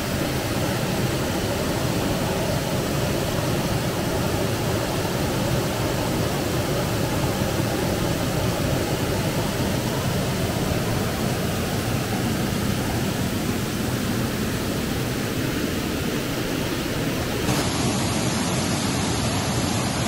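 Steady rush of a waterfall on a mountain stream: dense, even white water that goes on without a break.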